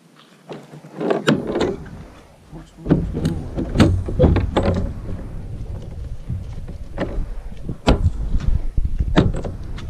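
Irregular knocks and clatter from work on a dirt kart, over a steady low rumble, with several sharp knocks near the end.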